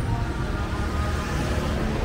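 City street ambience: a low rumble of passing traffic, with music playing in the background.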